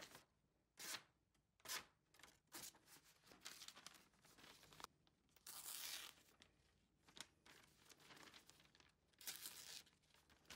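Hand-sharpened steel cleaver blade slicing through sheets of paper, first printer paper and then a glossy flyer. It makes a series of short, faint cutting and tearing strokes, with one longer cut about halfway through. This is a paper test of the newly finished edge.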